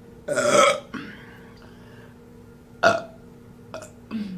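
A woman burping: a long, loud, pitched burp starting about a third of a second in, then a short, sharp burp near three seconds in, and two fainter small ones near the end.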